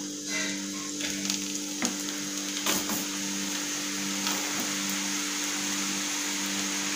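Besan sev strands pressed from a brass sev press into hot oil in a kadhai, the oil sizzling as they fry. The sizzle builds soon after the start and then holds steady, with a couple of short clicks along the way.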